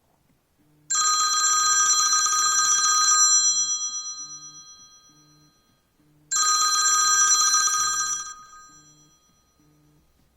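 iPhone X ringing with an incoming call: a bell-like ringtone trilling rapidly for about two seconds, then dying away, heard twice. A faint low pulsing buzz runs underneath.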